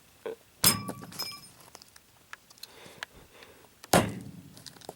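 Two hard hammer blows on a small metal stapler, about three seconds apart; the first leaves a brief metallic ring.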